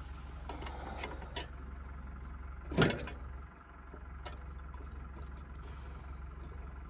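Scattered metal knocks and clicks as the steering column of a Massey Ferguson 204 forklift is wrenched at by hand, stuck fast in its housing, over a steady low hum. About three seconds in there is one louder, short strained sound.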